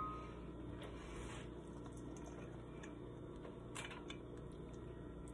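Faint steady background noise with a few light clicks, the clearest nearly four seconds in, from kitchen tongs handling cooked fettuccine noodles over a bowl.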